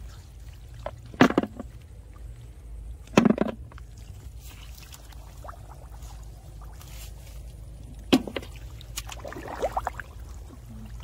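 Splashing and sloshing of shallow muddy field water as someone wades and gropes in it by hand for snails: a few sharp splashes, the loudest about a second in and about three seconds in, then more near the end, over a steady low rumble.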